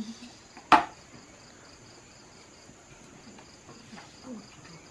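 A single sharp whack about a second in, from bamboo shoots being pounded flat with a knife. Then a cricket chirps steadily in quick, even pulses.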